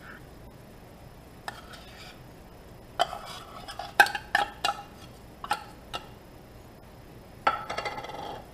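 A metal spoon scraping and knocking inside an open tin can, scooping drained tuna out: a run of sharp metallic clinks, each with a short ring, and a longer scrape near the end.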